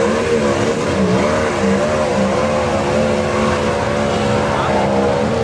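Off-road trial vehicle's engine revving hard under load as it climbs a steep bank, its pitch rising and falling continuously.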